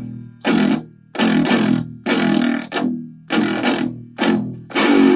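Distorted electric guitar playing short, choppy low chugged chords in an irregular stop-start rhythm, with a longer held chord near the end.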